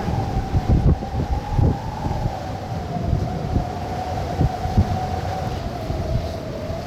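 Jet airliner engines whining on landing approach, a steady tone that slowly drifts lower. Strong gusty wind buffets the microphone with uneven low rumbles.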